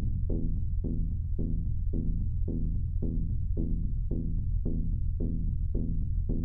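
Improvised electronic music: a steady low synthesizer drone under a short pitched synth note that repeats about twice a second.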